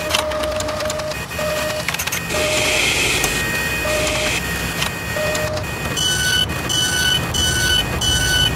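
Mechanical sound effects for an animated machine: whirring and clicking machinery with a short low beep that comes back at irregular gaps. From about six seconds in, a higher beep repeats a little under twice a second.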